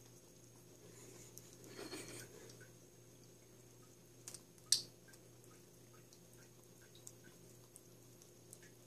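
Ferret licking paste from the tip of a squeeze tube: faint, wet little ticks about three a second. One sharp click about halfway through is the loudest sound.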